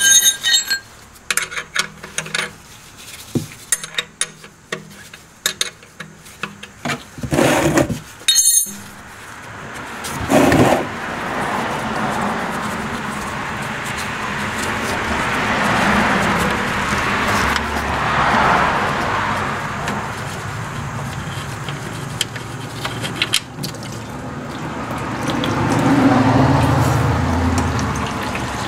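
Clicks and clinks as the 5/8-inch oil drain plug of a 2003 Lincoln LS is worked loose. From about ten seconds in, used engine oil pours from the oil pan into a drain pan in a steady stream.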